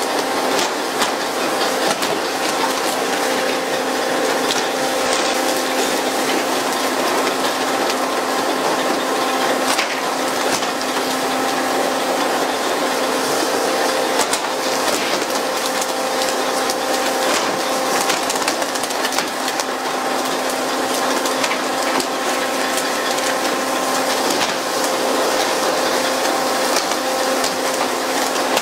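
A steady hiss of water spray and a steady machinery hum from a skipjack tuna pole-and-line boat, with frequent clattering knocks as tuna are flung onto the deck.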